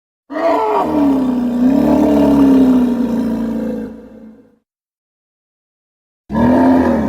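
Triceratops creature roar sound effect: a deep roar with a wavering pitch that lasts about four seconds and dies away. After a short silence a second roar begins near the end.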